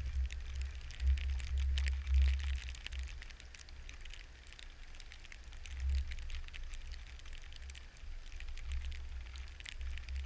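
Wind buffeting the microphone as a low rumble, with scattered crackling rustles that come thickest in the first couple of seconds and again around six seconds in.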